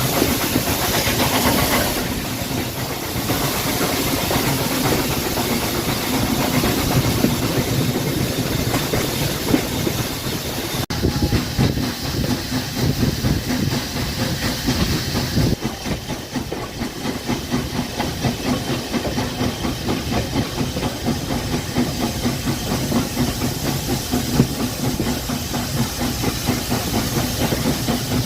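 Steam locomotive hissing steam, with a steady low rumble underneath. The hiss is strongest for the first couple of seconds, and the sound shifts abruptly about eleven and fifteen seconds in.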